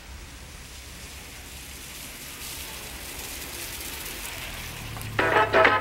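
A rain-like hiss over a low hum, slowly growing louder, then a dance track starts loudly about five seconds in.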